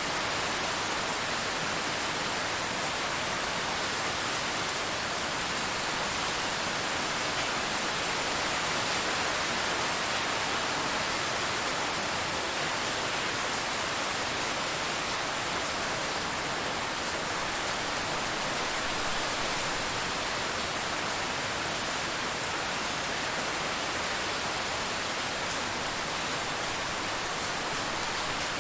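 Steady, dense rain: an even hiss with no single drops standing out.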